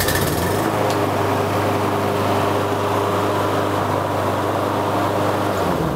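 Walk-behind lawn mower's single-cylinder engine, just started, running steadily at its governed speed now that a new governor spring is fitted. Its pitch drops near the end.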